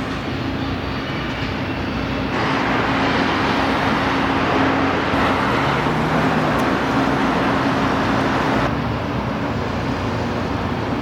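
Steady road and engine noise of a moving car, a wide hiss over a low steady hum, the hiss swelling about two seconds in and easing near the end.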